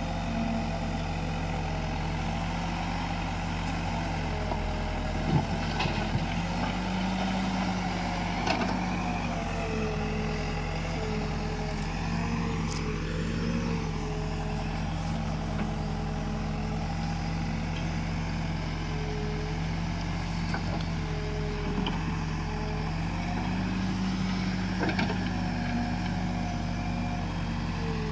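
Diesel engine of an Escorts Digmax backhoe loader running steadily while the backhoe arm digs and loads soil, its pitch shifting a little as the load changes. A few short sharp knocks sound over it, the loudest about five seconds in.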